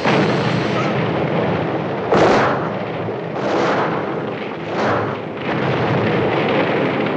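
Gasoline fire and explosions as film sound: a sudden burst at the start and a bigger blast about two seconds in, then the rushing noise of burning fuel swelling up twice more.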